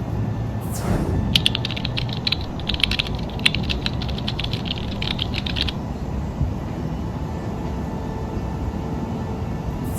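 A quick falling whoosh, then rapid clicking much like typing for about four seconds, over a steady low rumble; a second whoosh comes near the end.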